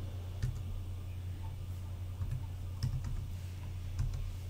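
Computer keyboard keystrokes: a few scattered, separate key presses while numbers are typed into a field, over a steady low hum.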